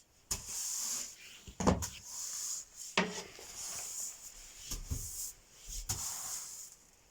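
Broom sweeping a floor: several brushing strokes of the bristles, with a few sharp knocks in between.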